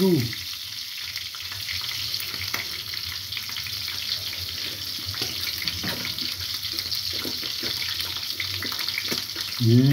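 Steady sizzling hiss of meat frying in a pan on a gas stove, with a few faint clicks.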